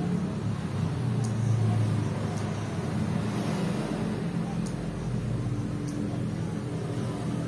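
A steady low motor rumble, with a few faint clicks.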